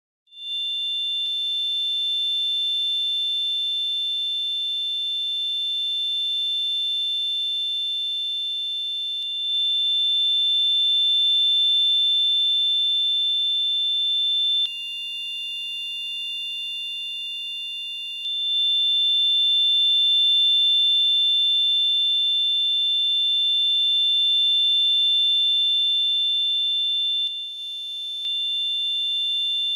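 Synthesized tinnitus sound effect: a steady, high-pitched ringing made of two close pure tones. It starts suddenly out of silence right at the start, and its loudness shifts slightly a few times, dropping between about 15 and 18 seconds in.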